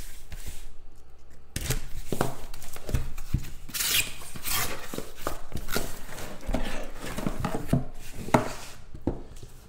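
Hands cutting into and handling a cardboard trading-card box and its packaging: a continuous run of scraping and rubbing with scattered small knocks and clicks.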